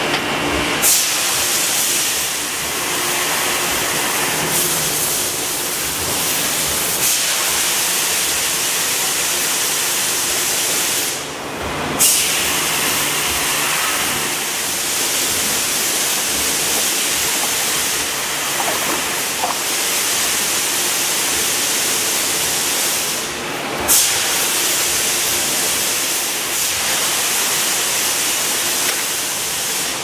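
Plastic-container forming press running with a steady, loud hiss of compressed air. A sharp air blast comes about every 12 seconds, three times, each right after a brief drop in the hiss as the machine cycles.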